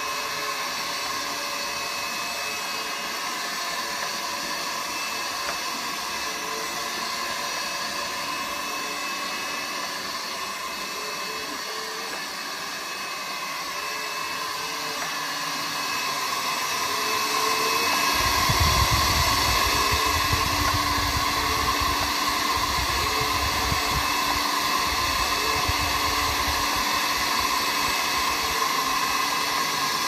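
Robot window cleaner's suction fan running with a steady, fan-like whine while the robot clings to and moves over the window glass. About two-thirds of the way through it grows louder and a low rumble joins in.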